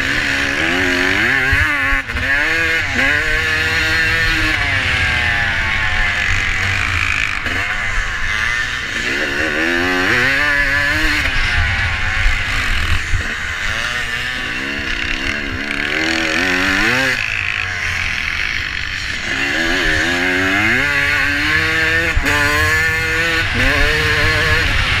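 Vintage motocross bike's engine heard from the onboard camera, revving up in repeated rising sweeps and dropping back as the rider accelerates, shifts and eases off for turns. A steady rumble and hiss runs underneath.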